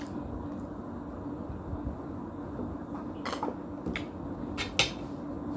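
Eating sounds: a few short clicks and smacks from mouth or utensils, bunched in the second half, over a steady low hum.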